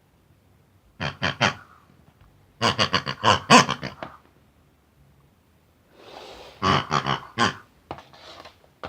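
Pig grunts and oinks in short, quick runs: three grunts about a second in, a longer string from about two and a half to four seconds, and another string from about six seconds on.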